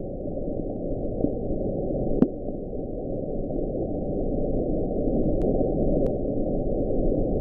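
The 'Bloop' underwater sound picked up by Pacific hydrophones in 1997: a dense, low rumbling noise with faint upward-sliding sweeps. There is a sharp click a couple of seconds in, and two thin clicks near the end.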